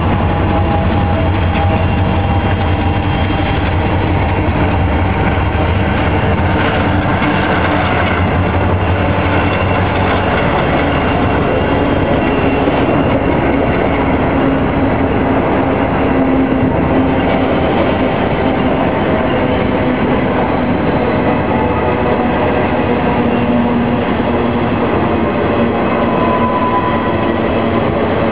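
Union Pacific diesel locomotives pass pulling a freight train upgrade, with a deep, steady engine drone for about the first ten seconds. Then the train's double-stack well cars roll steadily past, wheels rumbling on the rails, with faint squealing tones now and then.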